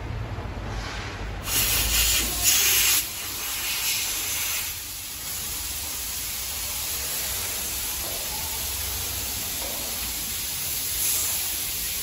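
Natural gas hissing out of a leaking building gas line under pressure. The hiss starts suddenly about a second and a half in, is loudest for the next second and a half, then settles into a steady hiss.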